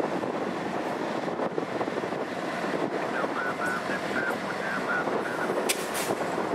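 Strong wind buffeting the microphone, a steady rushing noise, with two sharp clicks close together near the end.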